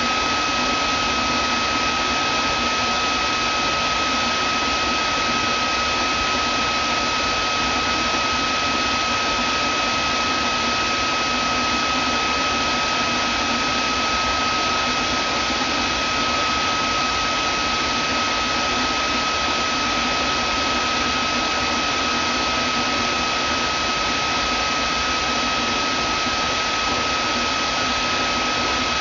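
Vacuum cleaner running steadily: an unchanging rushing hiss with a constant high whine over it.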